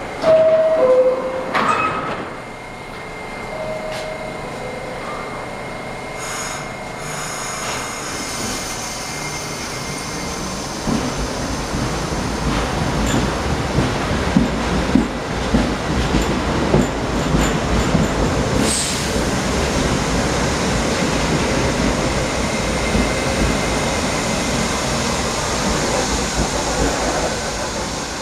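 R68 subway train's two-note falling door chime, then the doors shut with a knock. The train pulls out and gathers speed past the platform: a rising low rumble with wheels clattering over rail joints and a brief high wheel squeal.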